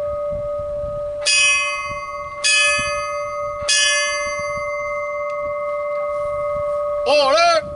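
Chrome fire department bell struck three times by hand, about a second apart, each strike ringing on over a long steady hum. This is the ceremonial ringing of the bell for a firefighter's funeral. Near the end comes a short, loud horn-like blast whose pitch wavers up and down.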